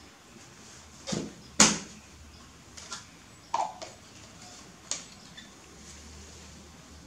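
A spoon and a plastic baby feeding bottle clinking and clicking as formula powder is spooned in and the bottle is handled: about six short taps, the loudest about a second and a half in.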